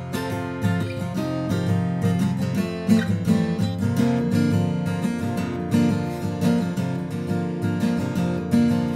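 Acoustic guitar strumming chords in a steady rhythm: the instrumental intro before the vocal comes in.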